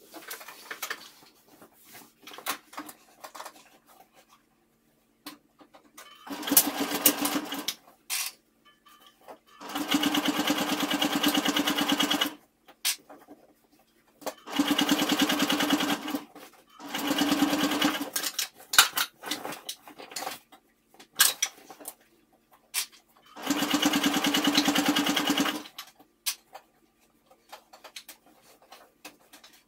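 Electric domestic sewing machine stitching in five short runs of one to two and a half seconds each, stopping and starting. Between the runs there are small clicks and rustling as the fabric is handled and repositioned.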